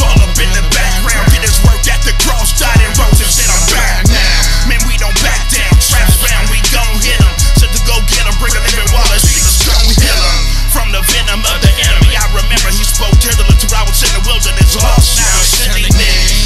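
Christian hip hop track playing loudly, with a heavy, steady bass and a punchy kick drum.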